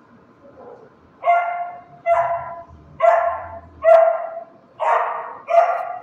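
A dog barking, six loud barks about a second apart.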